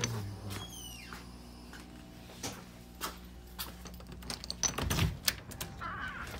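Scattered light clicks and knocks of someone walking and handling a door, with a brief high falling squeak about half a second in and a heavier thump about five seconds in.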